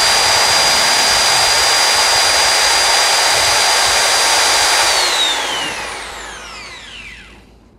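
DCK KQU160 electric mixer running unloaded with a bare spindle: a loud, steady high motor whine with gear noise. About five seconds in it is switched off, and the whine falls in pitch as it spins down to a stop.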